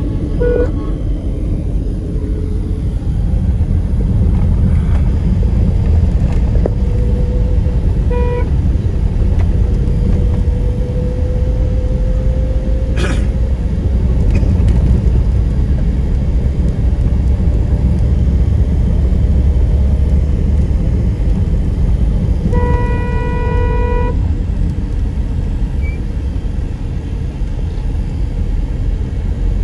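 Steady road and engine rumble inside a moving car, with a horn tooting briefly near the start and again about eight seconds in, and one longer horn blast of about a second and a half about two-thirds of the way through. A single sharp click sounds near the middle.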